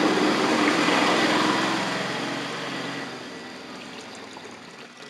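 Water being poured into a shallow bird bath dish, splashing steadily and then tapering off over the last couple of seconds.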